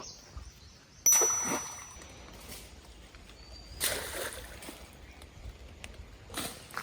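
Water splashing in a shallow stream: one sharp loud splash about a second in, then two fainter splashes.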